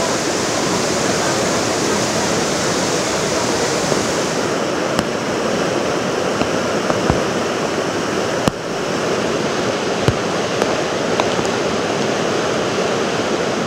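Floodwater rushing through a breach in a river embankment: a loud, steady churning of water with a few short clicks. The river has burst its embankment under a flash flood from the hills.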